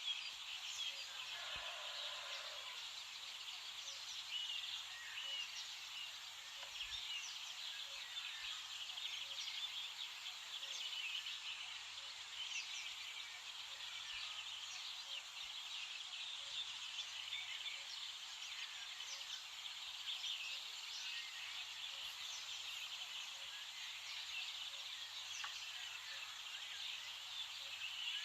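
Dawn chorus: many small birds singing and chirping at once, a dense, unbroken tangle of short high calls.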